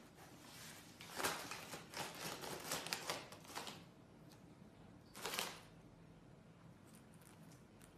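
A cat pawing inside a cardboard snack box, crinkling its plastic liner and fishing out a piece. There are two bouts of rustling: a longer one starting about a second in, and a short one after five seconds.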